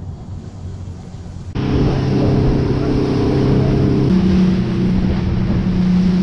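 Boat outboard motor: first a low steady hum, then about one and a half seconds in it jumps to a loud steady drone as the boat runs at speed, with rushing wind and water. The engine note changes about four seconds in.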